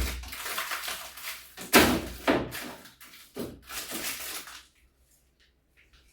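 Food containers and items being taken out of a refrigerator and set down: a handful of sharp knocks and clatters amid rustling.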